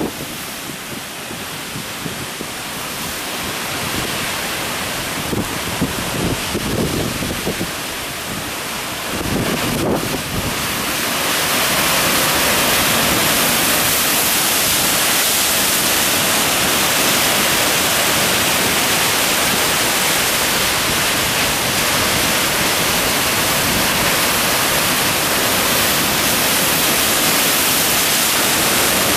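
Strong typhoon wind buffeting the microphone over heavy storm surf. About ten seconds in it settles into a steady, louder hiss.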